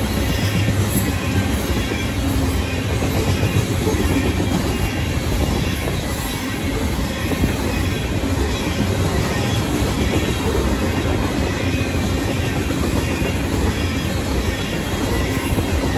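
Union Pacific coal train's open hopper cars rolling past at speed, with a steady rumble and clatter of steel wheels on the rails. The crossing's electronic and mechanical warning bells ring over it.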